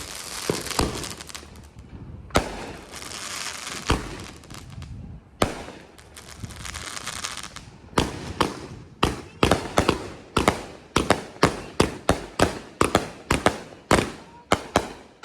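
Multi-shot consumer firework cake going off: shots bursting with long crackling tails in the first half, then a fast run of sharp bangs, about two to three a second, from about eight seconds in.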